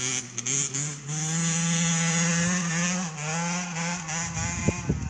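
Beta RR 50 supermotard's two-stroke 50 cc engine running at high revs: a steady buzzing note that wavers slightly, with a couple of sharp cracks near the end.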